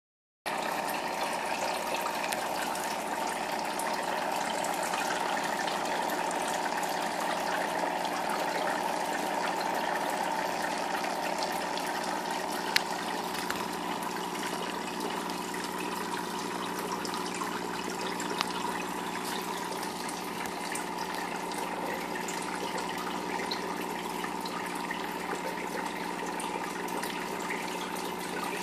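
Aquarium filter running: steady running water over a low steady hum, with two light ticks partway through.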